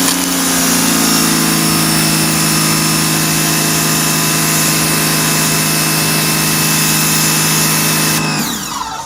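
AR Blue Clean 2050 electric pressure washer's pump motor running steadily with the trigger held, a steady hum over a high hiss, then falling in pitch and winding down near the end as the trigger is released. It switches on and off with the trigger, the sign that the newly replaced micro switch works.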